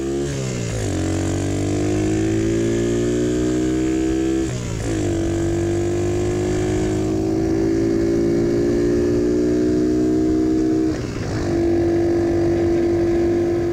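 Single-cylinder four-stroke 125cc engine of a CT70-clone mini bike pulling hard through the gears. Its pitch climbs, then drops with an upshift right at the start, again about four and a half seconds in and again about eleven seconds in, and after that it holds steady.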